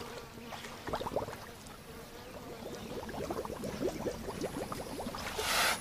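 Giant forest hog blowing bubbles through its snout in a muddy wallow: irregular bubbling and popping at the water's surface, with a brief louder rush of noise near the end.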